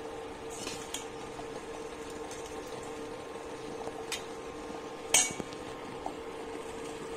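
Steel spoon scraping and clinking against a stainless steel puttu tube and bowl while scooping puttu flour into the tube: a few scattered clinks, one sharp loud clink about five seconds in, over a steady hum.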